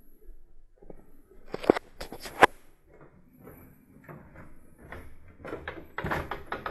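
Footsteps and knocks on wooden floor and stairs, with a few sharp knocks about two seconds in and a quicker run of footfalls near the end, as someone walks down a wooden staircase.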